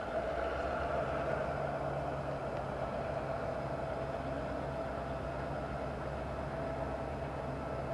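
Conrail diesel-electric freight locomotive approaching slowly, its engine running with a steady low rumble and a higher drone over it that is loudest in the first couple of seconds.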